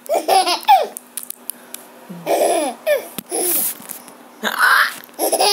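Baby laughing and babbling in short bursts with pauses between them.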